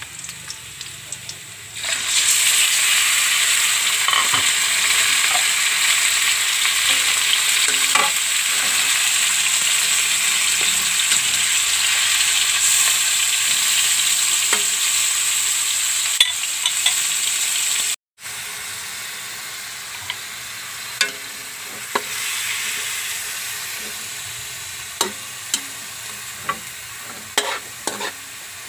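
Pork pieces frying in hot oil in a wok with onion and garlic: a loud sizzle starts suddenly about two seconds in as the meat goes into the oil, and holds while a spatula stirs. After a short break the sizzle is quieter, with clicks and scrapes of the spatula against the wok.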